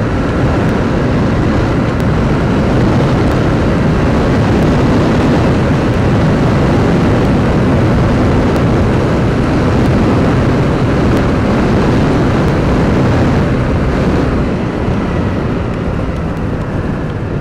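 TVS NTORQ 125 scooter ridden at about 80–90 km/h: a steady rush of wind over the microphone with the single-cylinder engine and tyre noise beneath it, getting a little quieter near the end as the scooter eases off.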